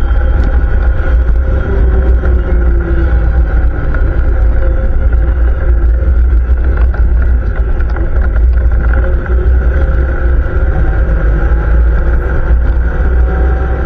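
ATV engine running steadily under way, with a constant low rumble.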